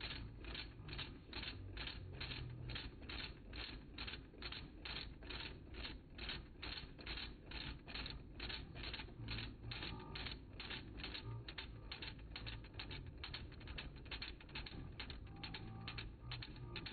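A fluted cutter cuts into a steel tool post block. Each pass of a flute gives a sharp click, evenly at about four a second, over the steady low hum of the machine.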